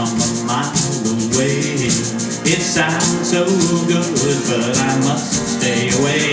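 Small live country band playing, with acoustic guitar and drum kit over a fast, steady percussion beat.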